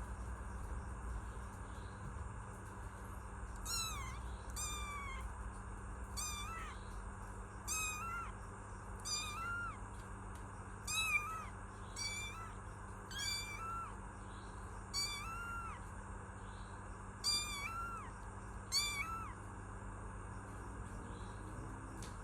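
Kitten meowing: about a dozen short, high-pitched meows, roughly a second apart, stopping a few seconds before the end.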